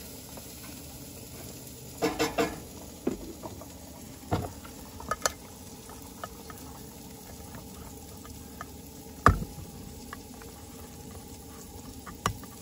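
Hook-type can opener on a folding multi-tool levered around the rim of a steel can: irregular clicks and short scrapes as the blade bites and pries through the lid, with one sharp, loud click about nine seconds in.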